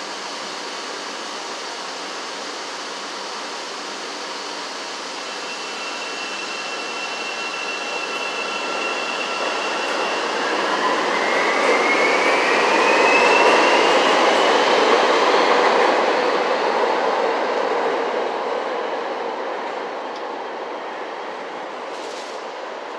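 CTA 5000 Series rapid-transit train pulling out of the station: steady running noise of wheels on rail that swells to its loudest about halfway through as the cars pass, with a rising whine as the train gathers speed, then fades as it leaves.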